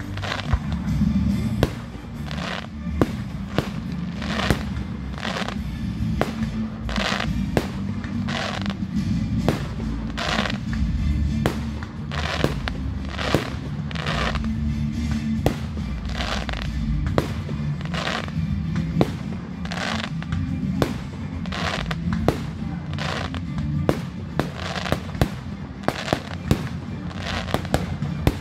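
Aerial firework shells bursting in a steady run of sharp bangs, one or two a second, over music playing underneath.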